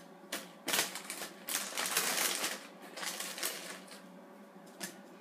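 Crackers being laid out on a plate, clicking against it and crunching as some of them crack. A run of small irregular clicks, with a denser stretch of crunching about two seconds in.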